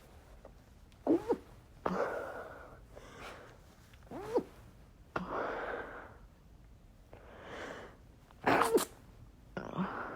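A person stifling a series of sneezes brought on by chhinkni sneezing snuff. Each sneeze is a short, sudden, pitched squeak held back in the nose and throat, followed by a breathy release, about four in all with breaths between.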